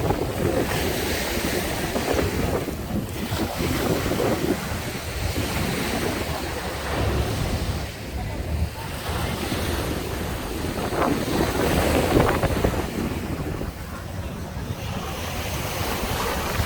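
Ocean surf washing onto the beach, rising and falling in a few swells, with wind buffeting the microphone as a steady low rumble.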